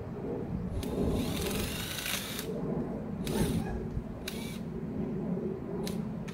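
Hand-tool work under a wooden picnic table: about five short bursts of scraping and clicking, the longest lasting about a second, over a steady low rumble.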